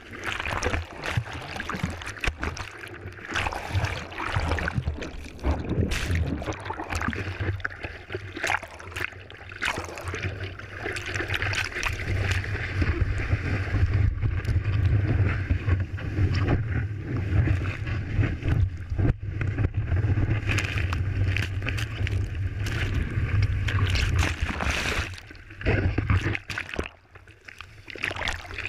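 Foaming surf rushing and splashing over a surfboard-mounted camera, with a steady deep rumble underneath as the board is carried through broken whitewater. It is loudest through the middle and drops away briefly near the end.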